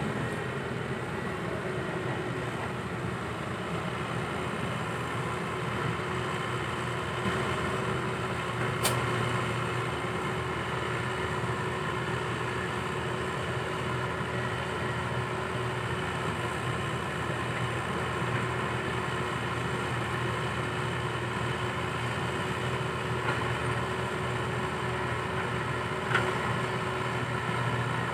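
Heavy-machinery diesel engine running steadily at an even speed, with a sharp click about nine seconds in and another near the end.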